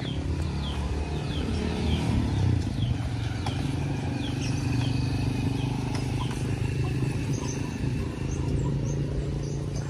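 Short, high, falling bird chirps repeating every half second or so over a steady low hum.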